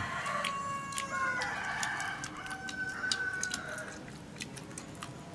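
A rooster crowing once, a long call held for about three seconds that steps up in pitch partway through, with small clicks scattered underneath.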